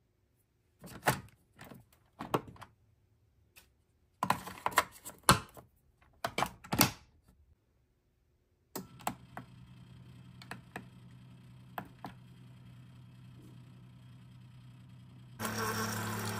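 Single-serve coffee maker: a run of sharp clicks and clunks as it is handled, then after its button is pressed a steady low hum as it starts up, rising about a second before the end to a louder hum and hiss as it begins brewing into the mug.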